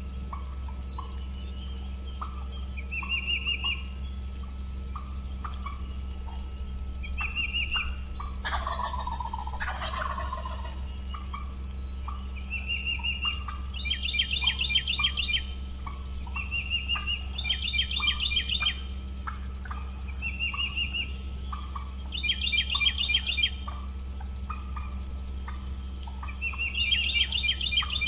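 Bald eagle calls: short, thin rising whistled notes repeated every few seconds, alternating with four rapid stuttering chatters, all over a steady low rumble.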